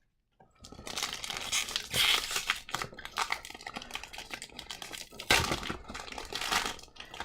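Foil wrapper of a hockey card pack crinkling and tearing as it is handled and ripped open, with two louder spells of ripping.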